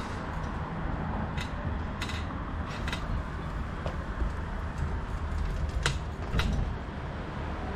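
Bicycle creaking and rattling as it rolls, with a few sharp clicks scattered over a steady low rumble.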